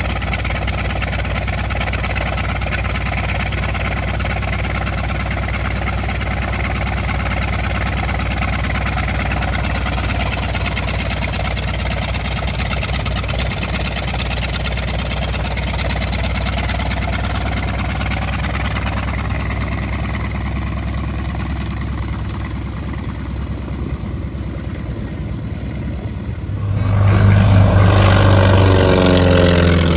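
North American T-28 Trojan's Wright R-1820 nine-cylinder radial engine running steadily as the aircraft taxis. About 27 seconds in it gets much louder and rises in pitch as power comes up for the takeoff run.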